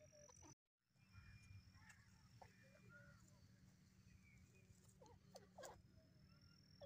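Near silence: faint outdoor ambience with scattered soft bird chirps and calls over a low rumble and a thin, steady high tone. The sound drops out briefly about half a second in.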